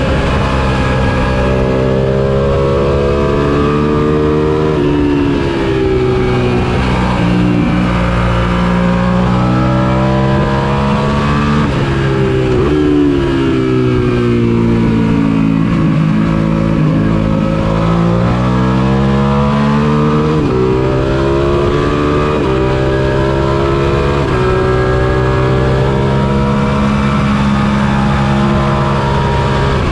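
Suzuki SV650's 90-degree V-twin engine at race pace, heard from on the bike: revs climbing with sharp drops at the upshifts, sinking through a long slowing in the middle, then pulling up through the gears again. A steady rush of noise runs under the engine.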